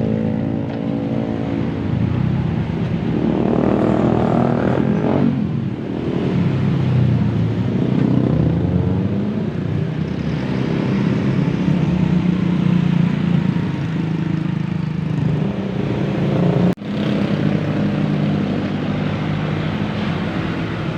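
Intercity bus diesel engines running as buses pass at close range, with one engine revving up in a rising sweep about three to five seconds in. Near the end the sound drops out for an instant and picks up again.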